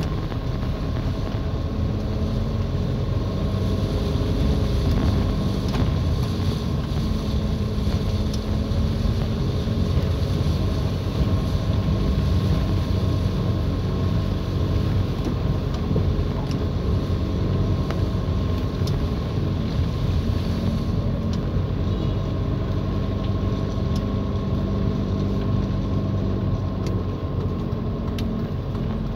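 Car driving on a wet street, heard from inside the cabin: a steady low engine and road rumble with a faint even hum.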